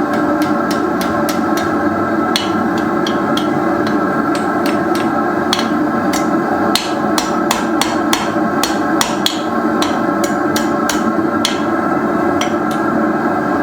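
Blacksmith's hammer striking metal on an anvil in a long run of irregular blows, about two to three a second with short pauses, over a steady loud drone.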